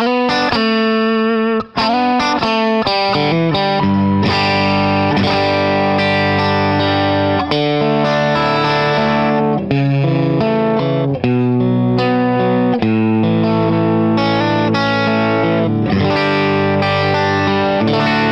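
Fesley Stratocaster-style electric guitar with ceramic pickups, played through an amplifier on the fourth pickup-selector position: a run of changing notes and chords with a short break about two seconds in.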